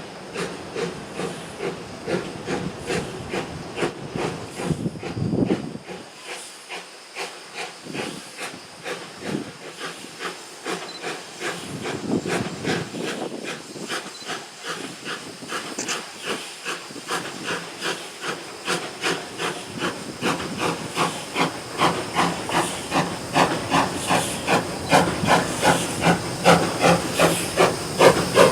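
Steam locomotive working, its exhaust chuffing in a steady rhythm with hissing steam, growing louder toward the end.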